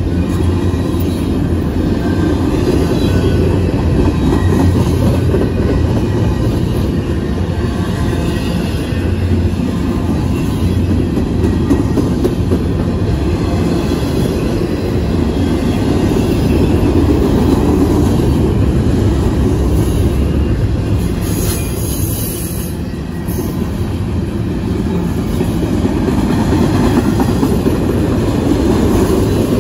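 Double-stack intermodal freight train's well cars rolling past close by: a steady rumble and rattle of steel wheels on the rails.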